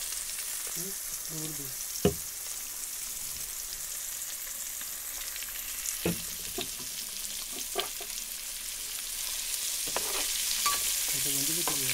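Masala-coated fish steaks sizzling in hot oil in a kadai, a steady hiss. A few sharp clicks of a spatula against the pan as the pieces are turned, the loudest about two seconds in.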